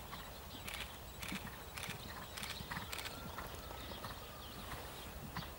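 A ridden horse cantering on sand footing, its hoofbeats coming as soft, evenly spaced strikes about twice a second.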